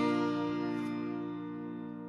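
Final guitar chord of the song ringing out and slowly fading after the last strum.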